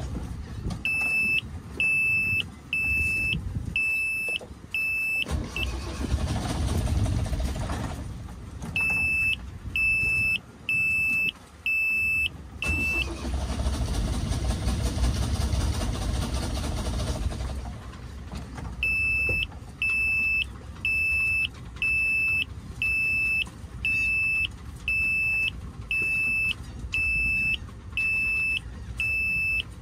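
Marine diesel engine's panel alarm beeping steadily, about one and a half beeps a second, stopping twice while the engine is cranked on the starter in two spells of low rumbling. The engine does not catch: air in the fuel line after a fuel filter change keeps it from starting.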